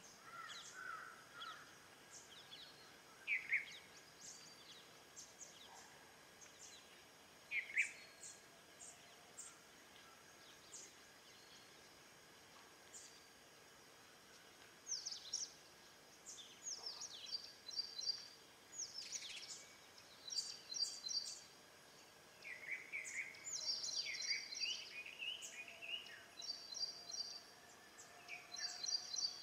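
Small birds chirping and calling: short high chirps and quick repeated trills, a few at a time early on and busier from about halfway through.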